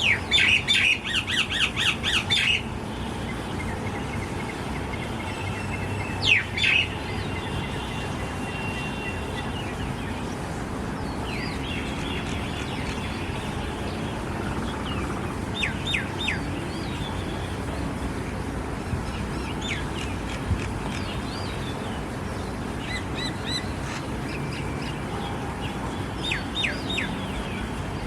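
Parrots calling: a rapid run of sharp chirps and squawks in the first two and a half seconds, a loud squawk about six seconds in, then scattered short calls over a steady background noise.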